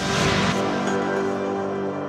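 Closing theme music: sustained chords that swell in and hold steady.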